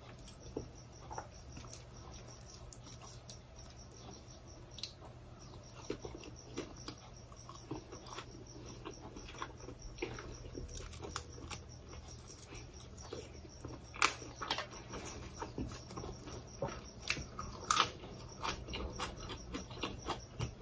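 Close-miked chewing, heard as many small mouth clicks and crackles, with two louder clicks in the second half.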